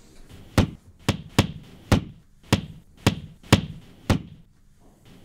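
A fist punching a wall again and again: eight hard thuds in about four seconds, a little uneven in spacing.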